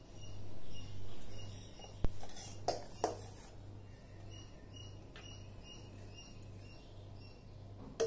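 Steel ladle and saucepan clinking lightly: three sharp clinks about two to three seconds in and one more near the end. Under them runs a steady low hum with faint high chirps repeating.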